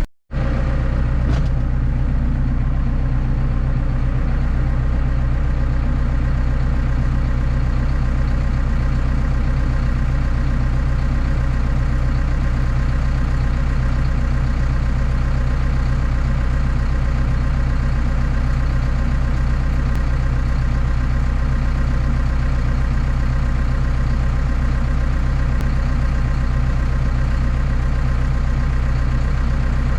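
Tractor diesel engine idling steadily, with no change in engine speed.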